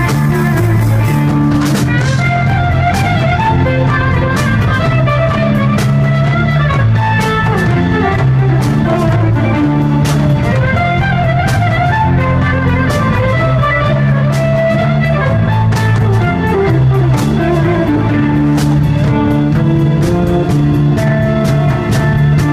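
Live folk-rock band playing loud: drum kit with evenly spaced cymbal ticks, a repeating bass line, and guitar and fiddle carrying the melody.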